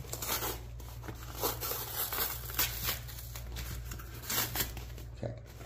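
Paper or plastic packing in a mailed box crinkling and tearing in irregular bursts as the box is opened and rummaged through.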